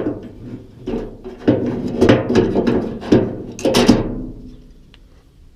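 Metal clunks and scraping with some ringing, from the tailgate latch parts being handled and worked by hand, for about four seconds before fading off.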